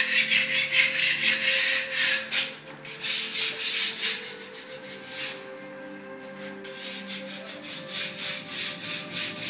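Paintbrush scrubbing paint onto a wall in quick back-and-forth strokes, about three a second. The strokes are strong at first, fade out after about two seconds, and come back weaker near the end.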